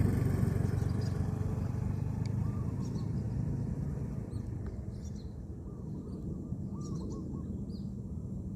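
A low rumble that slowly eases over the first few seconds. Under it come soft, short, repeated dove coos, typical of a spotted dove, and a few faint high chirps from small birds.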